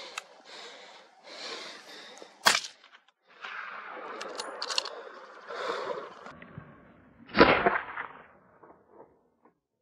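Two gunshots about five seconds apart, the second louder and echoing briefly.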